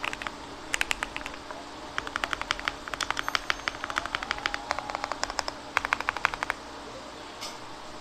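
Typing on a Sun68 custom mechanical keyboard with a polycarbonate plate, hot-swap PCB and TTC switches under GMK Dark keycaps: quick bursts of keystrokes with short pauses between them, stopping about six and a half seconds in.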